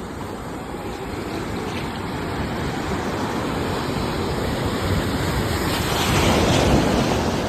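Sea waves washing in as a steady surf rush, one wave swelling louder about six seconds in and then falling away.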